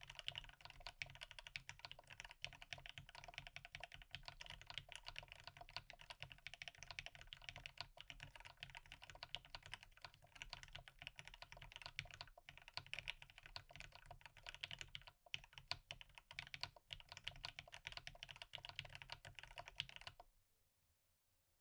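Steady fast typing on a custom KBDFans Maja mechanical keyboard with lubed and filmed Marshmallow linear switches on a brass plate, no foam. The typing stops about a second before the end.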